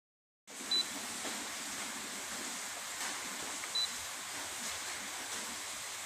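Two short, high-pitched beeps from an Alpicool portable fridge's control panel, about three seconds apart, over a steady background hiss.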